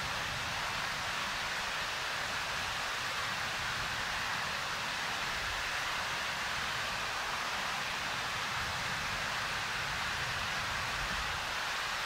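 Waterfall: the steady, unbroken rush of falling water.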